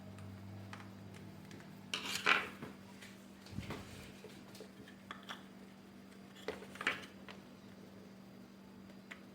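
Plastic parts of a vacuum cleaner being handled and fitted together by hand: scattered rubbing scrapes and light clicks, with two louder scrapes about two seconds in and near seven seconds, over a faint steady hum.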